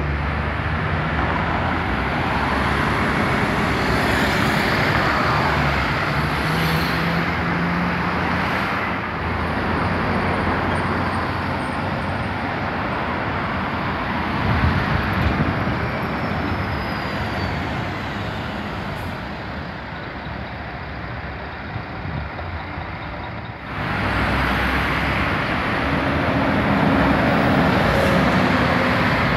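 Diesel city buses, including articulated buses, passing close by on a busy multi-lane avenue, their engines and tyres heard over steady traffic noise. The sound changes abruptly about three-quarters of the way through.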